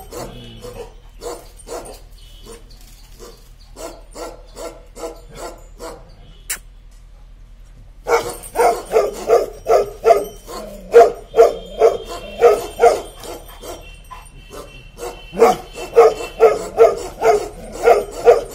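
Young black-and-tan Bakarwal dog barking in rapid runs of about two to three barks a second. The barks are softer at first, stop for a couple of seconds about a third of the way in, then come back louder in two long runs.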